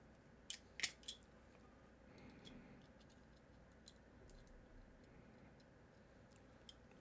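Three sharp metal clicks in the first second or so, then only faint scattered ticks: a hand crimping tool being handled and set on a crimp sleeve.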